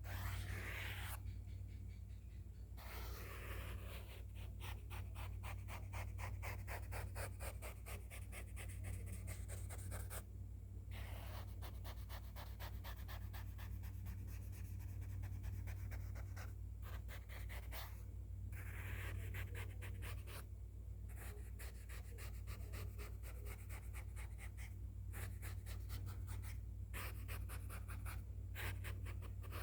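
A sketching tool scratching quickly back and forth across a surface in rapid strokes, in runs broken by short pauses about a second in, near ten seconds, and a few more times later. A steady low hum runs underneath.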